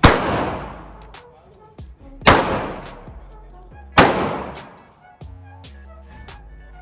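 Three pistol shots, the second a little over two seconds after the first and the third under two seconds later, each with a long echoing tail. Background music with a beat plays underneath.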